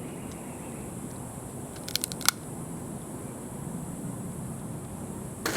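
A quick cluster of sharp clicks about two seconds in, the last one loudest, over a steady high-pitched hiss. A short breathy sound comes right at the end.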